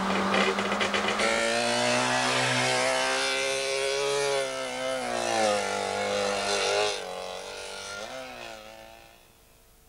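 A Trabant's small two-stroke engine running hard as the car drives off, its pitch climbing and dropping several times as it is revved up and backed off. It grows fainter after about seven seconds and fades out near the end. Another car's engine is heard for about the first second.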